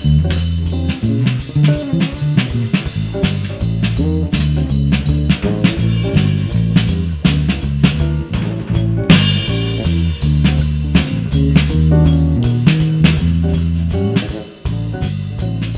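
Instrumental band jam: electric guitar and bass guitar over a drum kit keeping a steady beat, with a louder crash about nine seconds in.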